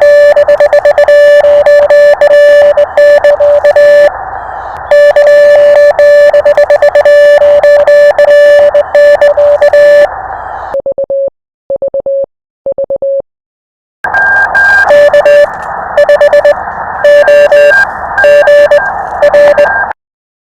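Morse code (CW) on a ham radio: a tone of about 600 Hz keyed on and off in dots and dashes over steady receiver hiss. About halfway through, the hiss drops out for a few seconds and only a short run of clean keyed tone is heard, then the hissy Morse code returns and stops just before the end.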